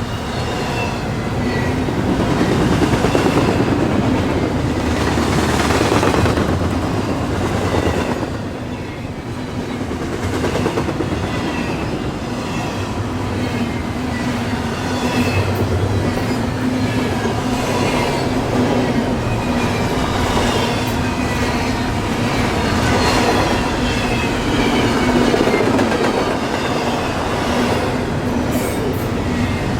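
CSX intermodal freight train rolling past at speed, its wheels clicking rapidly and continuously over the rail joints.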